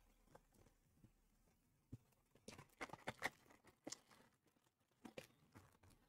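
Faint rustling and crinkling of a cardboard blaster box being opened and the foil trading-card packs inside being handled: a few short scattered crinkles, most of them from about halfway through.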